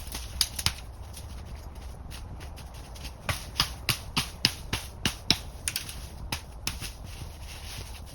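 Hand-tool work on birch wood: a run of sharp, irregular knocks and clicks, a few each second, coming thickest from about three seconds in.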